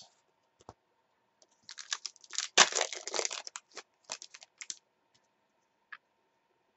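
Wrapper of a trading card pack crackling and crinkling as it is torn open by hand. There is a quick run of crackles from about two seconds in until nearly five seconds, followed by a faint click or two.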